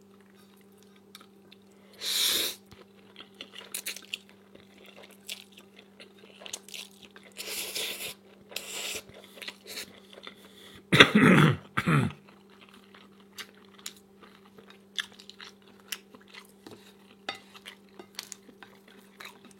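Close-up chewing and crunching of fried egg rolls, with many small crackly bites. About eleven seconds in comes a louder short vocal sound, like a cough or throat noise, over a steady faint hum.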